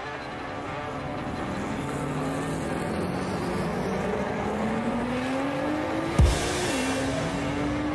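Drag racing car accelerating hard down the strip, its engine note climbing steadily in pitch, then dropping at a gear change and climbing again near the end. A sudden loud thump sounds just before the shift.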